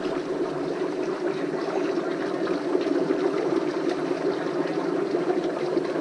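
Dry ice bubbling steadily in a bowl of hot water, a continuous dense gurgle as it gives off fog.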